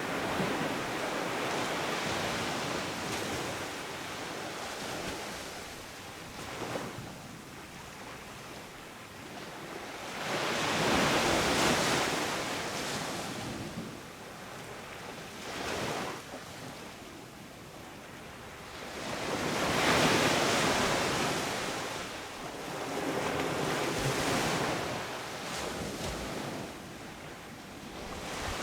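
Waves breaking and washing up a sand beach, the surf swelling and fading every few seconds, with the biggest breakers about eleven and twenty seconds in.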